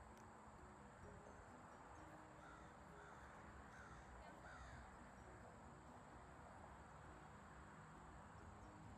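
Near silence: faint outdoor ambience with four faint bird calls in quick succession between about two and a half and four and a half seconds in.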